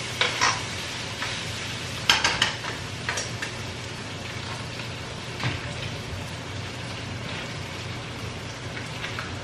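Food sizzling in a hot pan, a steady frying hiss, with a few scrapes and knocks of a utensil stirring it, the strongest cluster about two seconds in.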